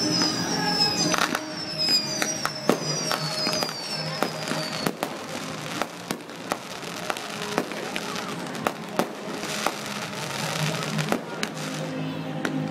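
Fireworks display: several falling whistles over the first few seconds, and a string of sharp bangs and crackles from aerial shells bursting throughout.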